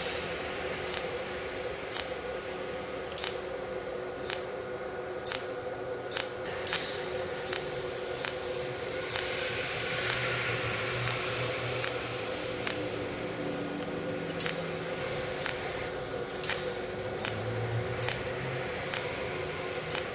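Cold welding machine firing a series of sharp snapping clicks, roughly one every half second to a second, over a steady electrical hum.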